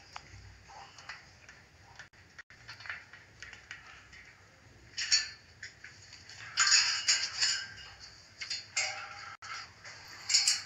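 Wet macaw preening in its cage: scattered short clicks, rustles and soft sounds, quiet at first and coming in louder bursts from about halfway, with a brief pitched call near the end.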